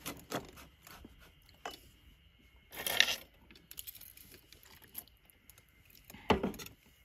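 Small clinks and clicks of utensils and tableware during a meal, with a brief louder burst of noise about three seconds in and a thump a little after six seconds.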